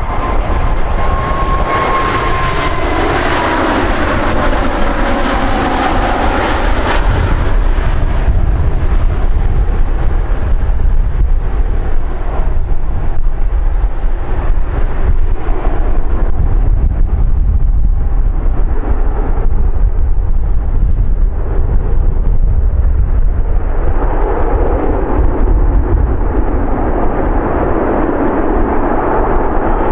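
Boeing 737 MAX's CFM LEAP-1B jet engines on final approach, a broad rushing engine noise loudest as the jet passes in the first several seconds, with a whine that falls slightly in pitch about a second or two in. The engine noise fades in the middle and swells again near the end, over a steady low rumble of wind on the microphone.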